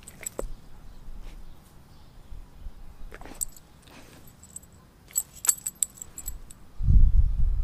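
Metal tags on a Doberman's collar jingling in short bursts as she turns her head, after a few light clicks of licking and chewing at the start. A louder low rumble comes in near the end.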